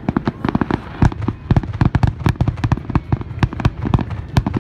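Fireworks finale: a dense, irregular barrage of aerial shell bursts, several sharp bangs a second with no let-up.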